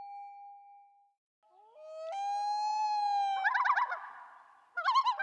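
Comic editing sound effects: a bell-like ding rings out and fades over the first second. Then a pitched tone slides up and holds, breaks into a fast warble, and a second burst of warbling comes near the end.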